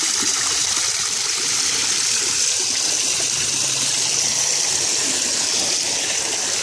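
Steady gush of water pouring from a fish-stocking tank's outlet and splashing into the lake as catfish are released.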